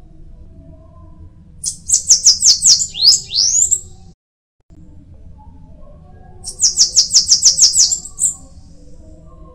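Bananaquit singing two songs, each a rapid run of high, thin repeated notes lasting about two seconds. The first song ends in a couple of sliding notes.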